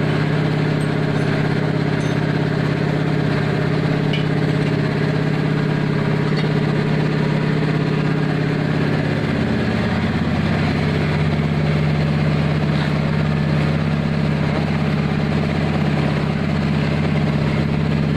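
An engine idling steadily, its note shifting slightly about halfway through.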